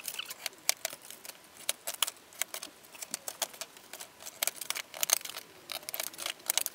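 Cut pieces of PVC foam board being handled and set down on a steel-topped workbench: an irregular run of light clicks, taps and rustles, several a second.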